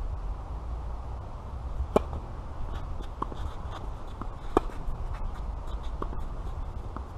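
Tennis ball struck by rackets in a rally: two sharp pops about two and a half seconds apart, the second a forehand by the near player, with fainter shoe scuffs on the clay court and a low rumble underneath.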